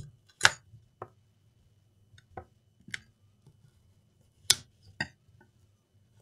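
Sharp clicks and snaps as a laptop screen panel is pried up off its adhesive strips. There are two loud snaps, one about half a second in and one about four and a half seconds in, with fainter clicks between.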